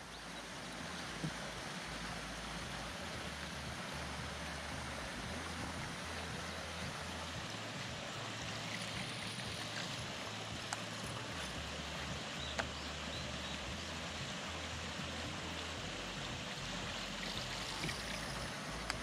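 Steady rush of water along the hull of a small aluminium boat moving across the water, with a few faint ticks.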